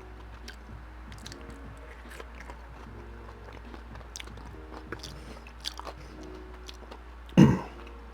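Close-up chewing and biting of poutine, with many small wet mouth clicks and smacks, and one louder mouth sound about seven seconds in.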